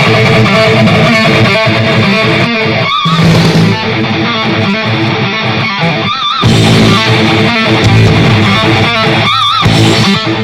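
Music with a distorted electric guitar playing through a small 20-watt Bluetooth speaker with two 10-watt drivers, picked up by a microphone in the room. A wavering high note comes back about every three seconds over a heavy bass line.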